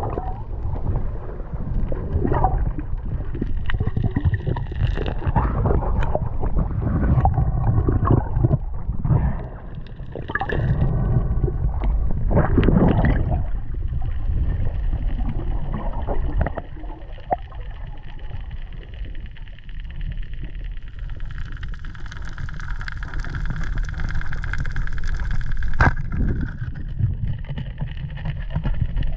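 Muffled water rumble and gurgling around a camera in the sea, with scattered knocks and splashes.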